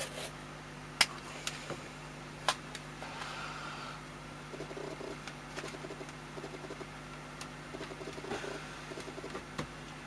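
Surgical tape being handled and pressed down onto a laptop circuit board: a few sharp clicks, the loudest about a second in and another about two and a half seconds in, with soft rustling, over a steady low hum.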